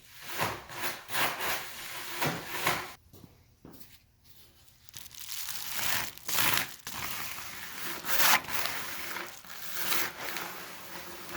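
Repeated rubbing and crinkling strokes from foil bubble-wrap duct insulation being handled and smoothed around spiral ductwork, with a short lull partway through.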